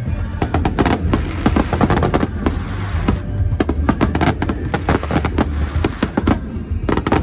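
A finale starmine of aerial fireworks: a rapid, dense barrage of bangs and crackles, several shots a second, over a continuous low rumble.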